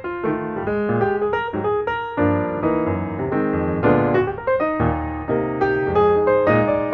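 Background piano music: a quick succession of notes over fuller chords.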